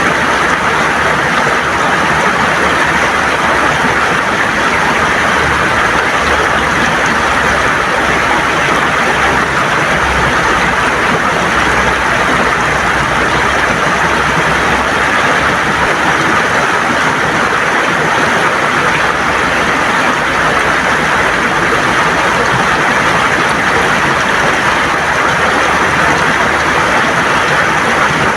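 River water gurgling over stones, a loud steady rushing with no breaks.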